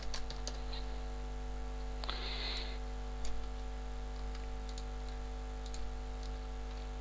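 Sparse computer keyboard typing and mouse clicks over a steady electrical hum, with a short breathy hiss about two seconds in.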